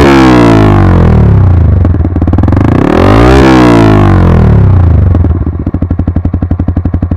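Yamaha R15 V3's single-cylinder engine through an aftermarket slip-on exhaust, revved up and falling back twice, then dropping to idle with a rapid, evenly spaced exhaust pulse.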